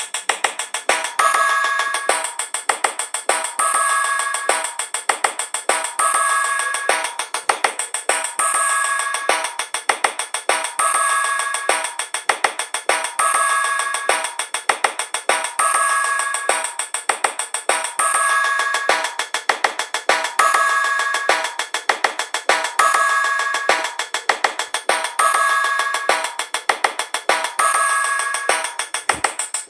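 Background music: a short phrase looping about every two seconds over fast, ticking percussion, with little bass.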